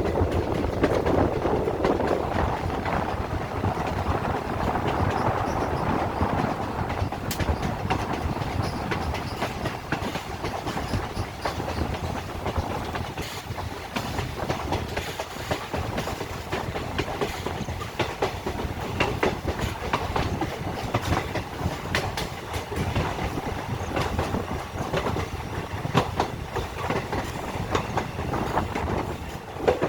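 A passenger train running on the line: a steady rumble of wheels on rails, with frequent sharp clicks and clatter from the track.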